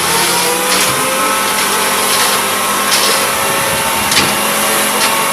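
Steady, loud whirring of a small motor, with a hiss and a few faint tones that drift slightly in pitch.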